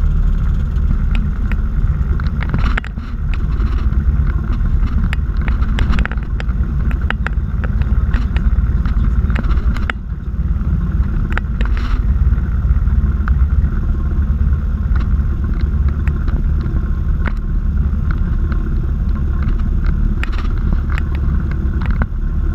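Light aircraft's piston engine and propeller running steadily, heard from inside the cockpit, with scattered short clicks and knocks. The level dips briefly twice.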